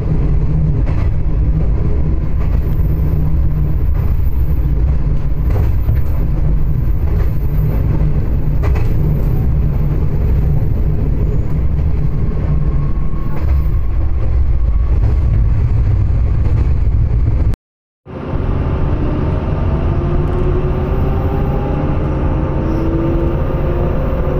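Inside a diesel railcar: a steady low rumble as the train runs along the track. After a brief cut about two-thirds of the way in, rising engine tones as the railcar pulls away from a station and gathers speed.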